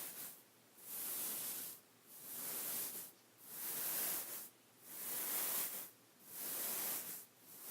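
Beaded pillow swishing in regular hissy strokes, about one a second with short gaps between.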